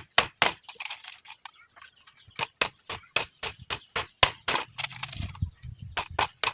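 Hammer striking wood in quick, even blows, about three to four a second. The blows pause for a couple of seconds, then start again.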